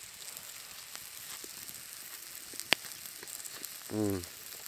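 Steak sizzling on a hot cast iron skillet: a steady hiss with small crackles and one sharp pop a little past halfway.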